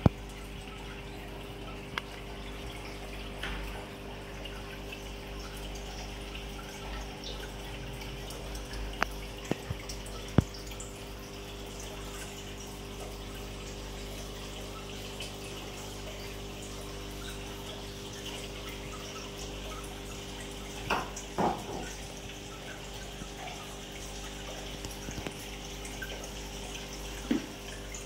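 Aquarium water trickling and dripping over the steady hum of the tank's pump, with a few sharp clicks scattered through.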